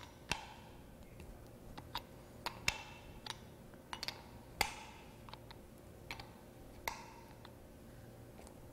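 A 5/8 open-end wrench clicking and clinking on a metal barb fitting as it is turned and refitted to unscrew the fitting from a plastic level control housing. Sharp, irregular ticks, roughly one or two a second.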